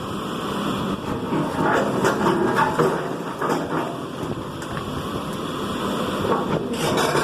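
Heavy demolition machine's engine running, with repeated cracks and crunches of building material breaking, thickest between about one and a half and three seconds in.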